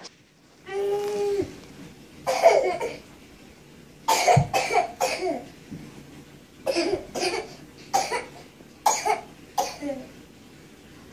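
A young child's voice holds a short high note, then a person coughs in several short fits spread over the following seconds.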